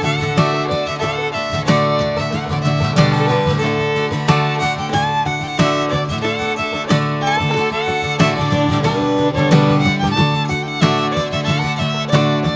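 Background music: a bluegrass-style tune with fiddle and plucked strings.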